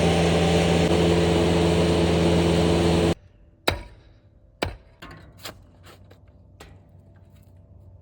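A motor-driven machine running loudly and steadily, cutting off abruptly about three seconds in. Then come several sharp, separate knocks, like hammer blows on wood, over a faint low hum.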